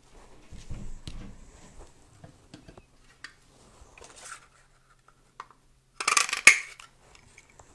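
A hand-held craft paper punch being picked up and handled, with light knocks and clicks, then pressed about six seconds in with a short, loud snapping crunch as it cuts through the paper strip.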